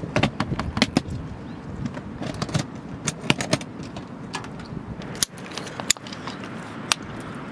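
Metallic clicks and clanks from an aluminium storage box being handled: set down, its latches snapped open and its lid lifted. There is a quick run of sharp clicks in the first second, more from about two to three and a half seconds in, then a few single knocks.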